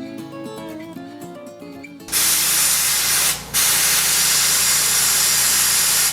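Acoustic guitar music, cut off about two seconds in by a loud, steady hiss of rushing air or spray. The hiss breaks off for a moment and then runs on.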